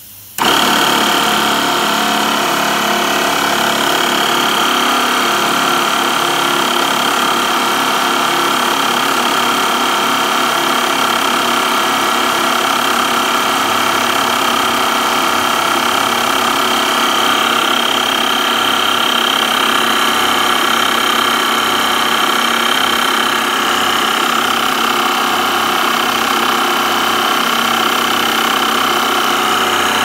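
Small electric air pump switching on about half a second in and running steadily, a loud hum with a high whine on top, pumping air into a line on a pressure gauge.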